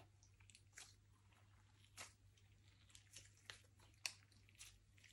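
Slime being squished and kneaded by hand, giving soft, irregular sticky pops and clicks, roughly one every half-second to second, over a faint steady low hum.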